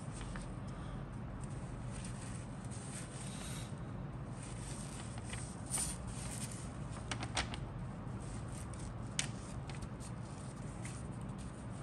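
Paper instruction sheet rustling and crinkling in a few short bursts as it is handled and shifted, over a steady low background hum.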